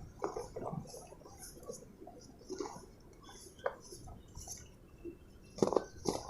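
Pure cement pieces crumbling, with irregular small crackles and crunches and a louder crunch near the end.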